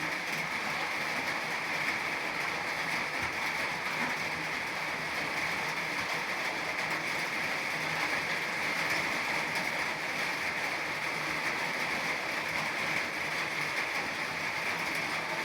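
Steady rain pouring down, an even hiss with no let-up.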